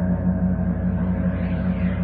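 Paiste planetary gongs sounding in a long sustained wash. A loud low tone pulses several times a second underneath, and a shimmer swells higher up about a second and a half in.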